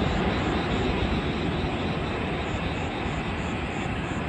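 Jet engine noise from a Boeing 787-10 landing, heard at a distance as a steady roar that slowly fades.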